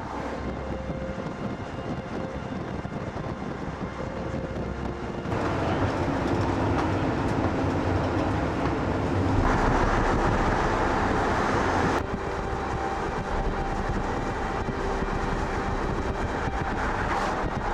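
Steady rumble of a vehicle driving, road and engine noise, changing abruptly in character several times.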